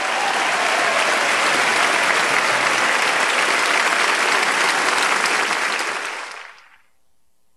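A large crowd applauding steadily, fading away about six and a half seconds in.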